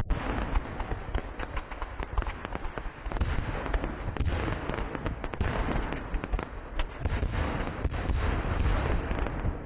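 Fireworks going off in a rapid, continuous barrage: dense crackling and popping from many aerial bursts at once, with low bangs underneath.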